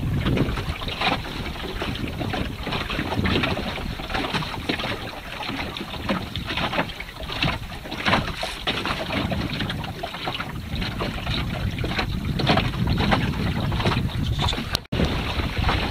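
Water splashing and rushing along the wooden hull of a small sailing boat under way, in irregular bursts, with wind buffeting the microphone. The sound cuts out for an instant near the end.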